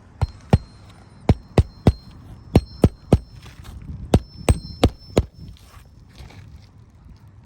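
Hammer driving roofing nails through an asphalt shingle: about a dozen sharp metallic strikes in quick groups of two or three, one group per nail, stopping about five seconds in.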